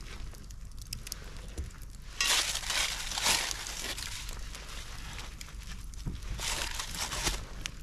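Scorched parchment paper crinkling and rustling as a burnt loaf is lifted out of a Dutch oven, in two spells, one about two seconds in and one near the end. The parchment has burnt through from too much heat under the pot.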